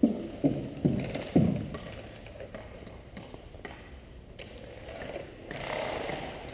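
Four sharp knocks in quick succession over the first second and a half, then quieter clatter that swells near the end.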